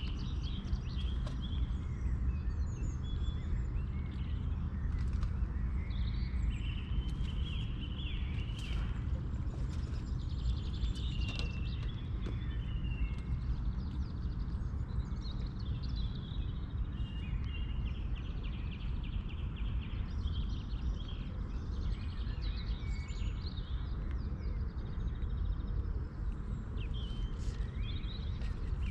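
Songbirds chirping and singing, short calls and trills one after another, over a steady low rumble.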